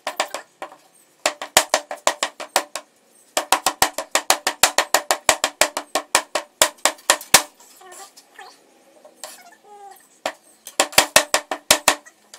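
Mallet pounding petrobond casting sand down into a metal moulding flask: runs of quick dull knocks, about five a second, broken by short pauses. This is the ramming that packs the sand tight around the pattern to form the mould.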